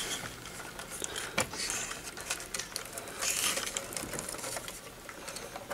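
Scattered light clicks and rustling as a circuit board and its bundle of wires are handled and tilted inside a tube tester's chassis, with a sharper click about a second and a half in.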